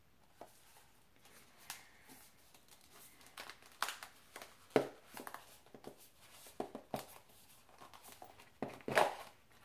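Tissue paper crinkling and rustling as a small packaged box is unwrapped and opened by hand, in irregular handling noises with a few louder crackles about four and five seconds in and again near the end.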